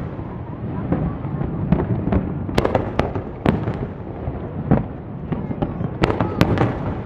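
Aerial fireworks shells bursting: about eight sharp bangs at uneven intervals over a steady low rumble, with several coming close together near the end.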